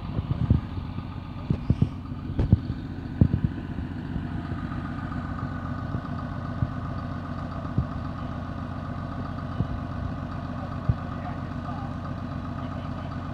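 Skidder's diesel engine idling steadily, with a few sharp knocks and snaps in the first three seconds.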